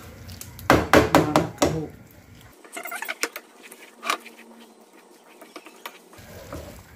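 Spatula clacking and scraping against a steel saucepan while rice vermicelli is stirred into sauce: a quick run of loud clacks about a second in, then a few softer taps.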